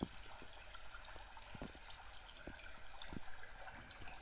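Recorded sound of a fountain's trickling water played back through the small speaker of a child's interactive talking pen: a faint, steady trickle with a few soft knocks scattered through it.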